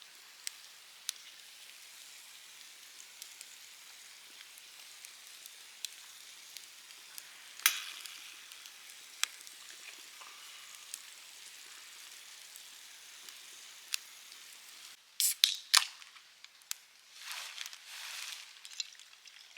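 Wood campfire crackling: a steady hiss scattered with sharp pops and snaps, a cluster of loud snaps about three-quarters of the way in, then two brief rushing swells near the end.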